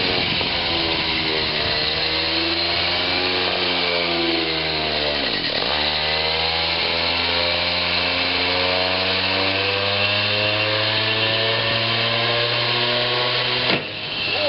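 Combat robot's motors running: a steady mechanical drone whose pitch wavers, dips sharply and recovers about five and a half seconds in, then breaks off just before the end.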